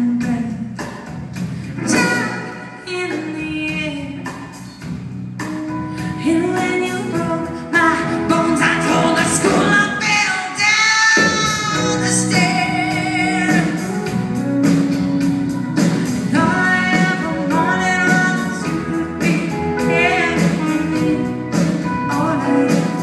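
Live band playing a song: a woman singing lead over acoustic guitar, electric guitar, keyboard and drums.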